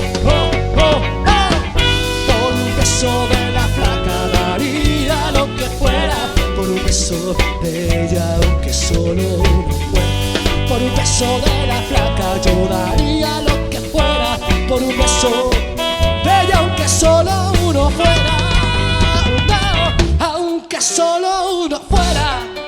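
A band playing upbeat music with a drum kit. The bass drops out briefly about 20 seconds in.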